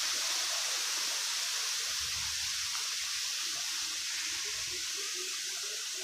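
Steady rushing hiss of wind blowing through coconut palm fronds.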